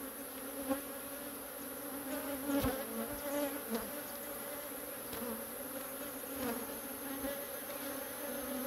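Honeybees buzzing around an open hive, a steady hum with a low drone and one overtone above it. The bees are stirred up and defensive at the hive being opened.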